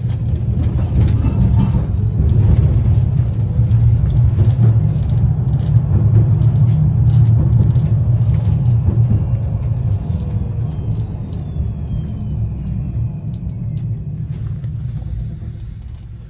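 71-932 "Nevsky" tram heard from inside, running along the track with a steady low rumble. The rumble fades over the last few seconds and a falling electric whine comes in as the tram brakes to a stop.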